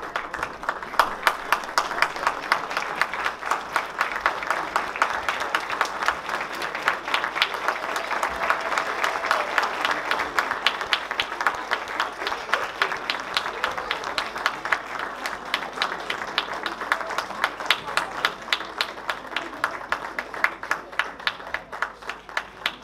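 Audience applauding steadily, a dense run of hand claps with sharper individual claps standing out.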